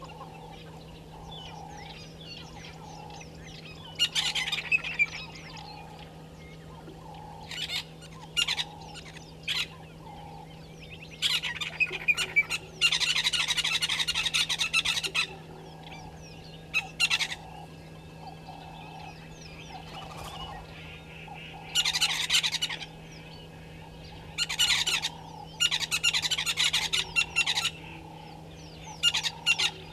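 Oxpeckers giving harsh, hissing rasps in bursts of up to a second, about nine times, one run lasting about four seconds. Under them run a soft low call repeating about once a second and a steady low hum.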